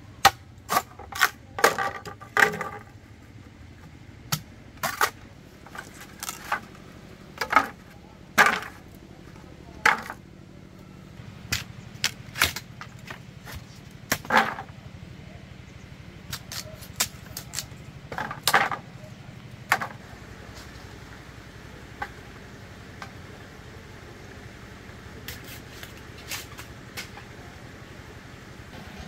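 A series of sharp, irregular knocks and clacks of hard objects. They come close together in the first few seconds, then thin out to single knocks every second or two, with a faint steady hiss underneath from about two-thirds of the way in.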